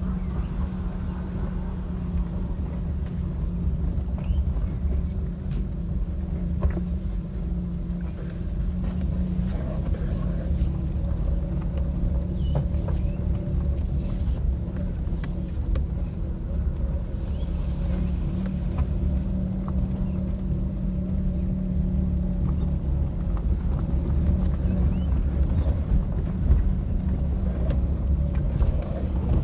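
Maruti Suzuki Alto driving over a rough dirt road, heard from inside the cabin: a steady engine and road rumble with a keychain jangling and light rattles from the door panels. There are no suspension or steering knocks, which shows the new steering rack has cured the noise.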